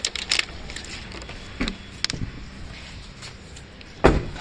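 Scattered light clicks and knocks, then a heavy thump about four seconds in as a Maruti Alto 800's door is shut.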